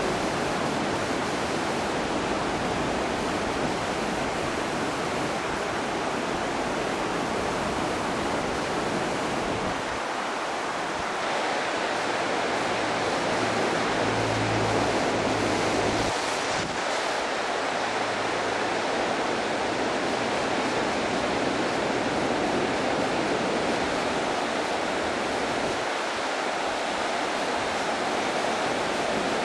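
Flooded river in spate: a steady rush of fast-running, swollen water.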